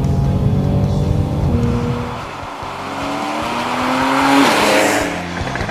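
Porsche 911 Carrera S (991) flat-six with a TechArt sport exhaust accelerating hard. The engine note climbs and drops back at two upshifts, and near the end a rising rush of road and wind noise comes as the car goes by.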